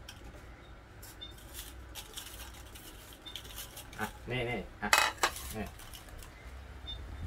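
Small number slips being stirred by hand in a ceramic bowl, rattling and clicking against the china. There is a sharp clink about five seconds in, the loudest sound.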